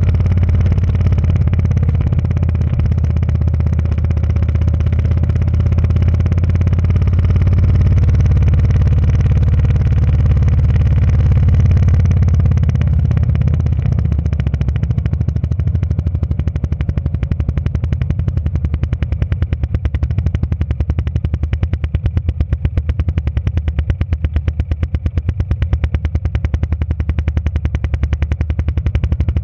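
A motorcycle riding on a gravel road: a steady low engine drone with road rumble. About halfway through, it turns into a fast flutter.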